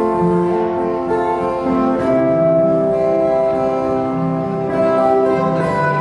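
Live acoustic guitar band playing a slow Korean ballad, with long held melody notes over the guitar accompaniment.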